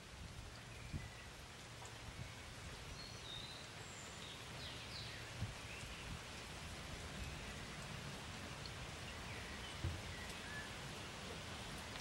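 Steady outdoor background hiss with faint bird chirps here and there, and three soft low thumps: one about a second in, one in the middle and one near the end.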